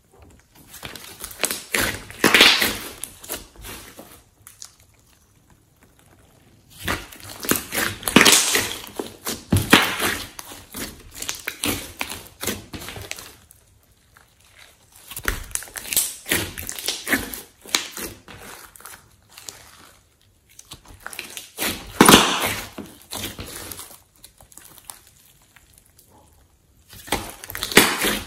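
Thick, sticky slime being squeezed, stretched and pressed by hands: wet squelching with crackly popping, in several bursts with quiet pauses between.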